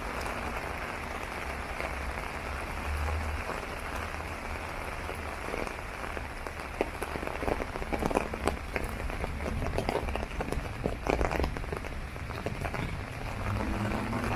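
Rain falling on an umbrella: a steady hiss of rain with many sharp, louder drop hits in the middle of the stretch.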